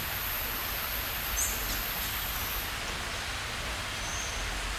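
Steady hiss of rainforest ambience, with a brief high bird chirp about a second and a half in and a short high bird note near the end.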